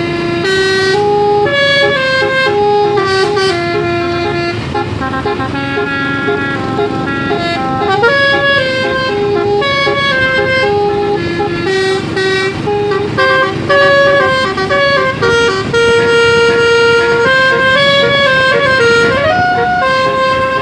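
A Basuri telolet multi-tone horn on a tour bus plays a loud tune of stepped horn notes that change pitch every fraction of a second, with a short sliding rising note near the end. A steady low rumble runs underneath.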